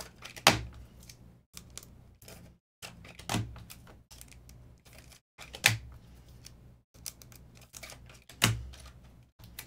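Hard plastic trading-card cases clacking as cards are cased up: four sharp clacks, about every two to three seconds, with lighter clicks and handling noise between.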